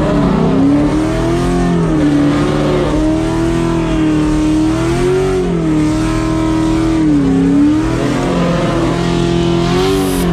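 A Ford Mustang's engine revving high through a burnout, its pitch rising and falling again and again as the throttle is worked.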